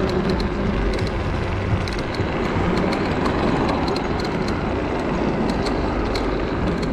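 Steady road and wind noise from a Zero 10x electric scooter riding over bumpy ground, with frequent small rattling clicks.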